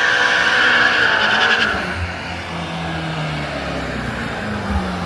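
BMW G90 M5 with aftermarket downpipes: a high tire squeal for the first couple of seconds, then its twin-turbo V8 running with the pitch rising and falling.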